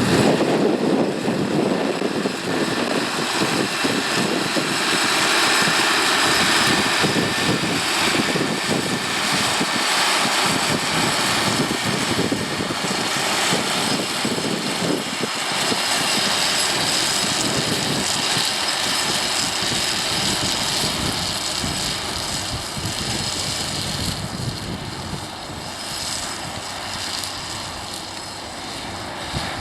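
Tractor engine running steadily while working a field, fading somewhat over the last few seconds.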